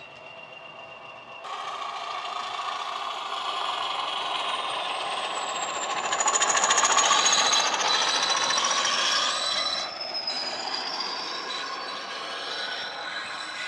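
Sound decoder in a model Class 20 diesel locomotive playing its engine sound as the model drives past, coming in suddenly about a second and a half in and loudest about six to nine seconds in. A high whistle falls slowly in pitch through it.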